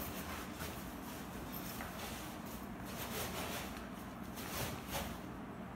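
Fabric storage cover rustling and scraping as it is pulled down over a folded steel-frame wagon, in several short bursts.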